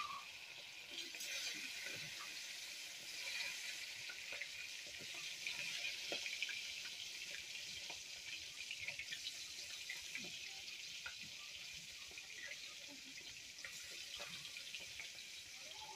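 Fish pieces frying in hot oil in a wok: a steady sizzle with small crackles and pops scattered through it.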